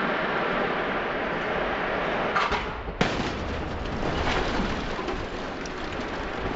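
A steady rushing noise, then a single sharp crash about three seconds in as a Volvo XC90 strikes the barrier in a crash test, with the noise carrying on afterward.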